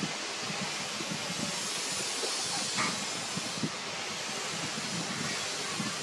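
A steady hiss with soft, irregular smacking from puppies suckling at their mother, and one faint, brief squeak about three seconds in.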